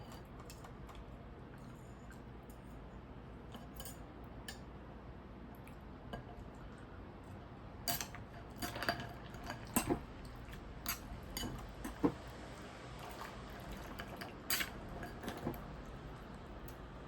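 Kitchen utensils clinking and tapping against dishes: a few faint ticks at first, then a scattered run of sharp clinks through the second half.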